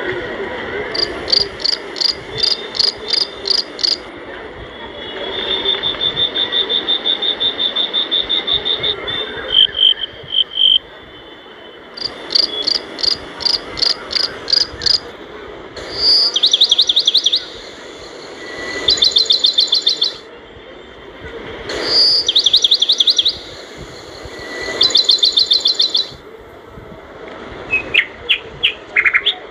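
Birds singing: phrases of rapid, evenly repeated high notes and trills, each lasting one to three seconds with short pauses between, over a steady background noise.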